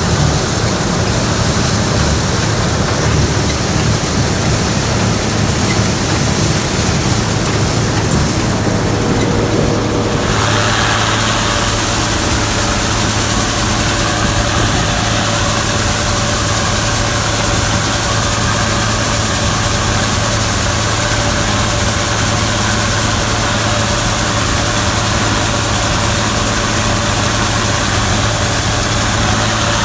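Gleaner combine running steadily, a constant low engine hum. About ten seconds in, a louder hiss and a steady higher-pitched whine join and then hold.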